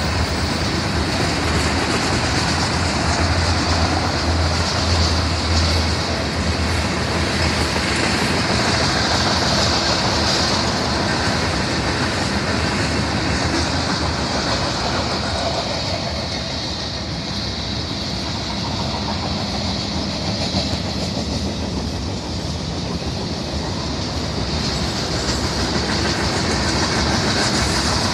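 Freight train cars rolling past at speed: steel wheels running on the rails in a steady rumble, easing slightly for a while in the middle before building again.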